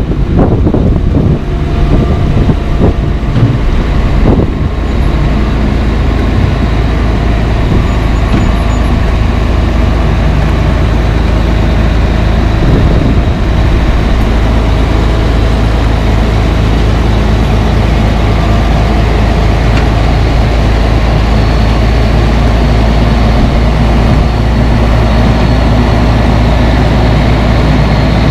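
Caterpillar 140H motor grader's diesel engine running steadily under load as the grader works close by, levelling a gravel sub base with its blade, with a few knocks in the first few seconds.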